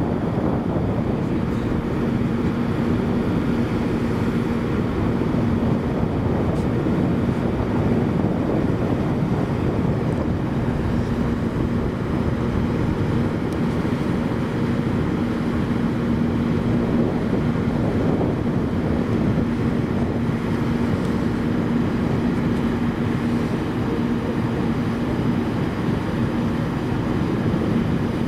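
Steady engine drone with a constant hum, over a low rumble of wind on the microphone.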